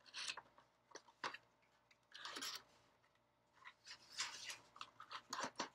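A cardboard Funko Pop box and its plastic packaging being opened and handled: scattered taps, scrapes and rustles, with a longer rustle about two seconds in.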